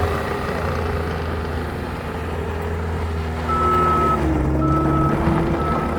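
Bobcat T75 compact loader's diesel engine running, its note shifting as the machine is driven, and from a little past halfway its reversing alarm sounds three high beeps about a second apart as it backs up.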